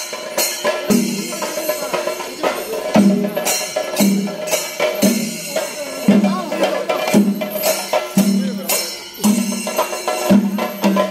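Kerala temple percussion ensemble: chenda drums with hand cymbals playing a driving rhythm, with a sharp accented strike about once a second.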